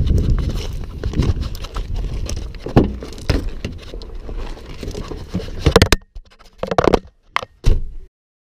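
Handheld camera jostling and rustling as someone hurries through grass and gorse, with irregular knocks and scrapes. About six seconds in a car door shuts, the outdoor noise cuts away, and a few clicks and knocks follow inside the car.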